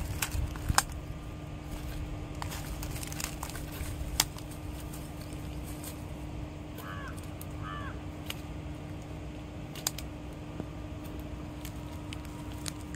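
Scattered clicks and crackles of a plastic bag and dry grass as freshly caught tilapia are picked up by hand and dropped into the bag, over a faint steady hum. Two short chirps come about halfway through.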